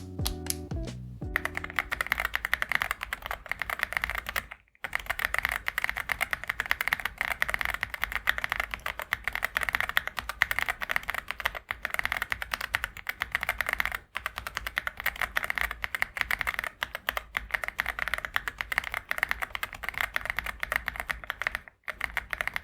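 Fast typing on a mechanical keyboard with CIDOO Carda linear switches: a dense, steady clatter of keystrokes, after music that ends about a second in. The typing breaks off twice, very briefly.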